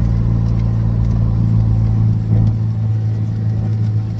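Kubota utility vehicle's engine running steadily with a constant low hum.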